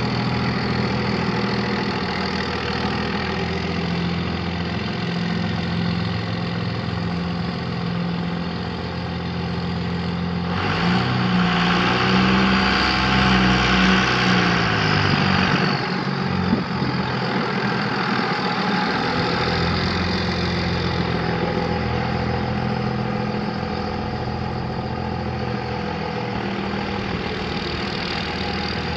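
A 2002 Dodge Ram 3500's 5.9 L Cummins inline-six diesel idles steadily. About ten seconds in it revs briefly, with a rise in pitch and a louder rushing sound, then falls back to idle.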